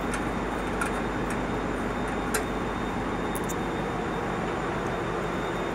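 Steady machinery drone with a low hum. A few light sharp clicks, about one second in and again past two seconds, as the metal control cabinet is handled and opened.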